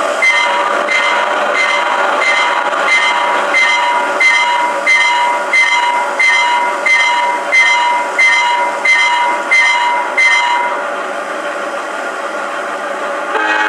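Phoenix PB-11 sound card in a G-scale USA Trains SD70MAC model playing diesel locomotive sounds through the model's small speaker: the prime mover runs steadily under a bell ringing about one and a half strokes a second, which stops about three seconds before the end. A horn starts to sound at the very end.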